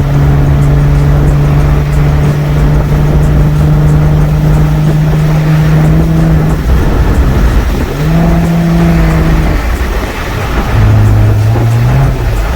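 Car engine and exhaust droning at a steady pitch under load, easing off about six seconds in, picking up again, then rising in pitch near the end as the car accelerates.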